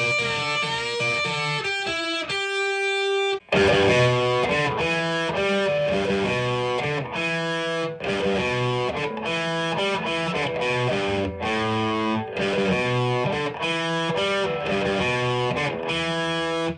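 Electric guitar bridge pickup through a Marshall DSL1 amp on its Ultra Gain channel, playing distorted chords. A held chord rings out, then about three and a half seconds in the sample cuts to a second take through the other pickup, with chords strummed in a steady rhythm and short breaks between them.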